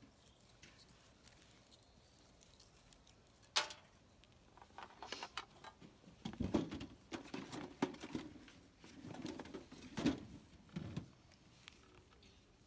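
A sharp click about three and a half seconds in, then irregular scraping and rustling as fire-lighting tinder is worked by hand.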